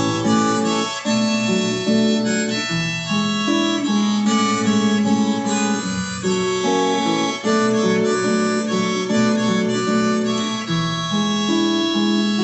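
Harmonica playing a melody in chords over acoustic guitar, an instrumental break between sung verses of a folk-pop song.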